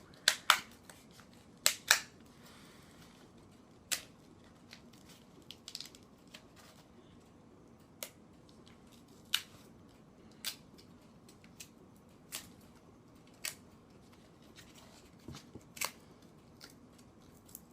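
Block of dry, uncooked ramen noodles being snapped apart by hand: sharp, irregular cracks and snaps, a few close together in the first two seconds, then single ones every second or so.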